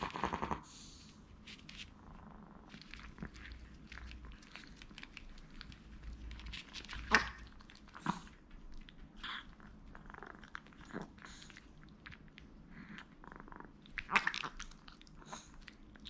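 Maltese puppies playing: a short high whimper right at the start, then scuffling and scattered sharp clicks as they paw and mouth at each other and at the pet stairs, the loudest click about seven seconds in.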